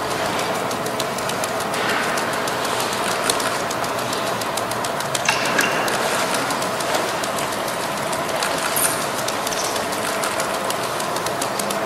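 Five juggling balls being caught and thrown at speed by hand: a fast, even run of soft slaps of the balls landing in the palms, several every second, with no break.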